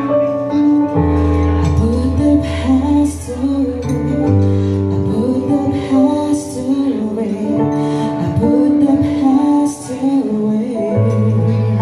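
A woman singing into a handheld microphone, amplified through a PA speaker, over instrumental backing with held chords and a deep bass line.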